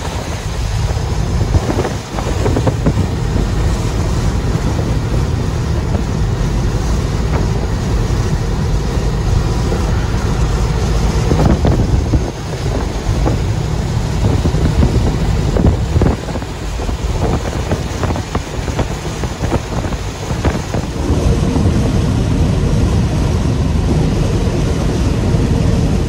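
Cab noise inside a Peterbilt semi truck at highway speed: a steady, loud drone of engine and road with wind rushing past.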